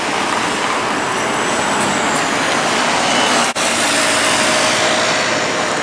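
Road traffic: cars and a motor scooter passing over tram tracks, a steady noise that drops out for an instant about three and a half seconds in.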